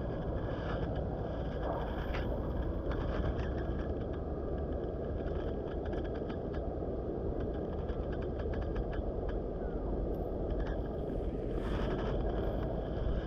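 Steady rushing of a fast-flowing river, with a few light clicks and taps over it.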